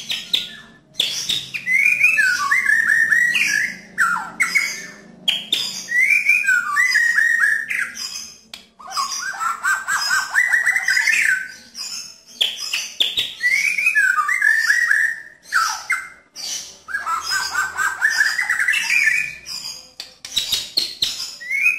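White-rumped shama (murai batu) singing in rapid bursts of rough and clear notes ('nembak'). About seven phrases, each a quick run of stuttering notes climbing in pitch with shrill harsh notes on top, separated by short pauses.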